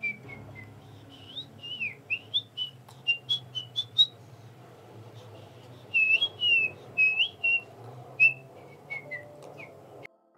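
A woman whistling idly through pursed lips: short chirpy notes sliding up and down, in two quick runs with a short gap between them. The whistling cuts off suddenly near the end.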